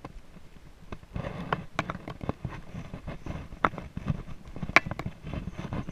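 Footsteps through long grass: irregular thumps and rustling, with a few sharper clicks.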